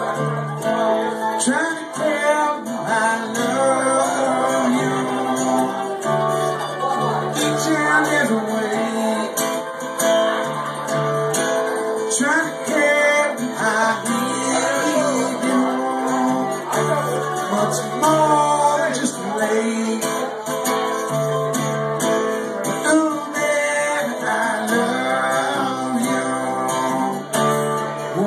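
F-style mandolin and acoustic guitar playing an Americana song together live, the guitar strummed under the picked mandolin.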